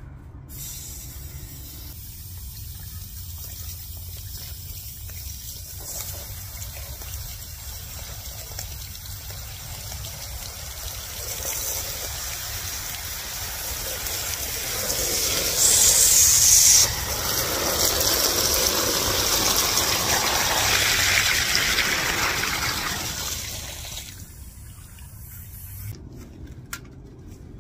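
Test water from a pressure-tested cast-iron drain stack gushing out around a deflating 4-inch test-ball plug. A steady hiss builds in the second half to a loud rush of spraying water with a brief sharper burst, then drops away abruptly near the end as the flow stops.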